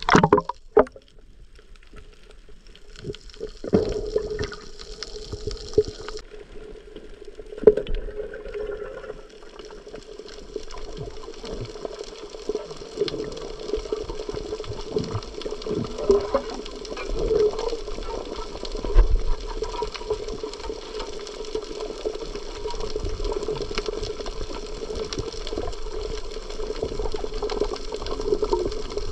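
Sea water heard through a diver's camera, most likely underwater: a continuous rushing water noise with scattered clicks and a steady hum underneath, and a couple of sharper knocks in the first part.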